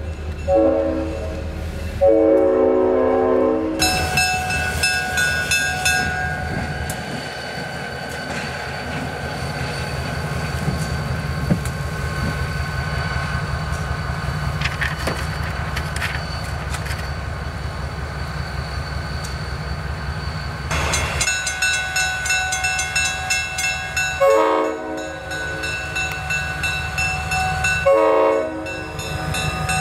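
Diesel freight locomotive sounding its air horn in blasts for a grade crossing, several near the start and again near the end. Between them the locomotive's engine rumbles steadily as it passes and a crossing bell rings.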